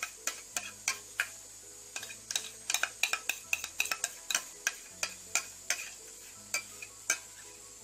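A spoon scraping and tapping against a pot while hot lemon cream is scraped out onto a cake: a string of irregular sharp clinks and scrapes.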